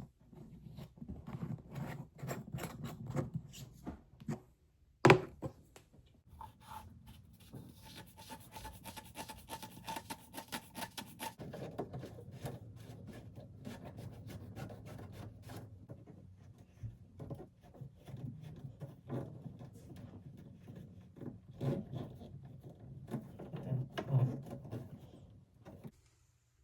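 Handling noises in a small room: rubbing and scraping with many light clicks and knocks, and one sharp loud knock about five seconds in.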